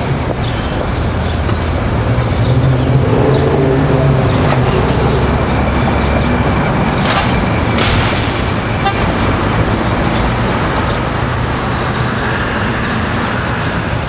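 Road traffic sound effect: vehicle engines running steadily under a continuous traffic rumble.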